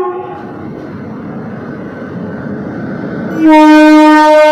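WAP-7 electric locomotive pulling in along the platform with a steady rumble, then sounding its air horn loudly about three and a half seconds in, held through the end.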